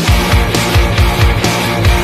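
Loud rock music with distorted band sound and a fast, steady drum beat of about four beats a second.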